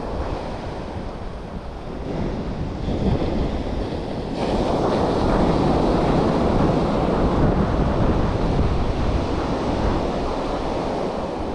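Sea surf washing on the shore, mixed with wind buffeting the microphone; the wash swells louder about four seconds in.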